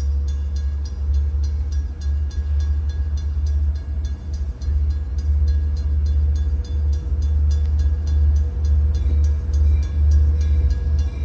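Approaching LIRR diesel train's low rumble, under a bell dinging rapidly at about four strokes a second.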